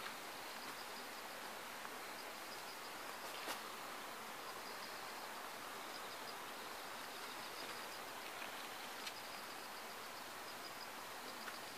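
Insects chirping in pulsed, high-pitched runs that come and go over a steady faint outdoor hiss, with a couple of brief sharp clicks.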